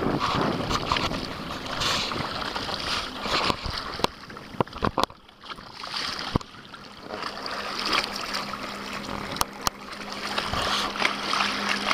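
Water splashing and rushing against the hull of a small sailboat under way, with wind noise, and a few sharp knocks in the middle and near the end.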